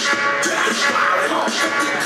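Loud hip hop music played by the DJ for the dancers, with a steady beat.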